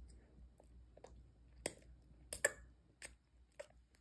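A young child eating ramen noodles: faint, scattered mouth clicks and smacks of slurping and chewing, about eight short sounds at uneven intervals.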